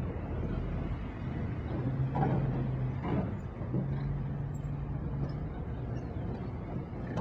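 Military truck engine running, a steady low rumble with a droning hum that comes and goes.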